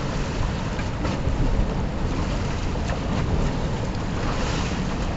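Choppy river water rushing and splashing around wooden posts, with wind buffeting the microphone in a steady low rumble.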